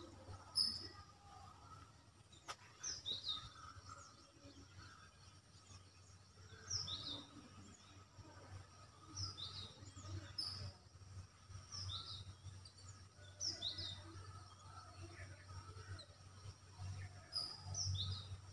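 A bird chirping faintly: short high chirps repeated every two or three seconds over a low steady hum.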